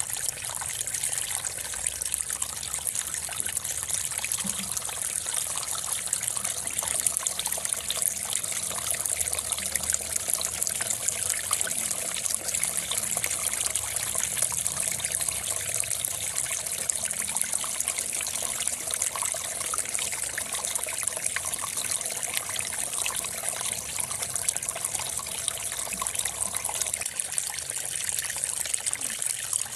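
Steady, even high-pitched hiss with a fine crackly texture, like trickling water, holding level throughout with no distinct separate sounds.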